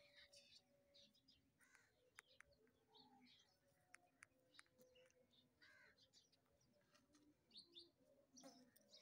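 Near silence, with faint short high chirps scattered throughout and a few soft clicks.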